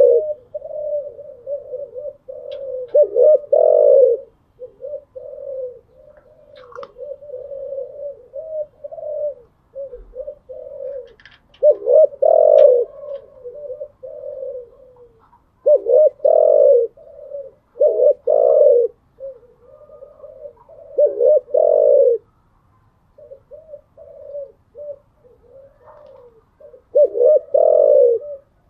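Spotted dove cooing over and over in low phrases of several notes each, some phrases louder and fuller than others.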